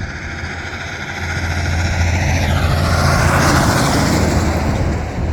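A vehicle passing along the highway: tyre and engine noise swells from about a second in, is loudest around the middle, then fades, its pitch dropping as it goes by.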